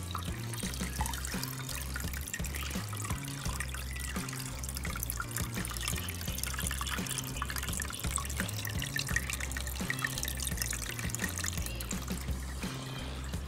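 Aquarium filter outflow pouring and trickling into the tank water, a steady splashing, over background music with a stepping bass line.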